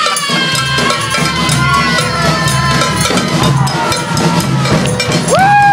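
Live marching band music: drums and cowbell keep a steady beat under a long held high note that sags slowly in pitch, then a short swooping note rises and falls near the end.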